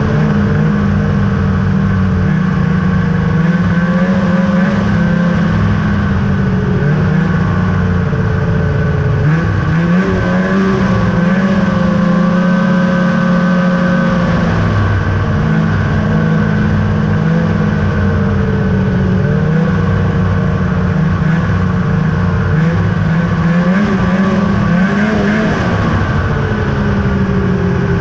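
2000 Ski-Doo Summit 800's two-stroke twin engine running steadily on the trail, its pitch rising and falling a little with the throttle, with a brief dip and pick-up about ten seconds in.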